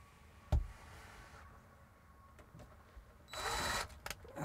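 A single thump about half a second in, then near the end a cordless drill/driver whirs briefly, driving a screw through the inverter's mounting flange into the wall.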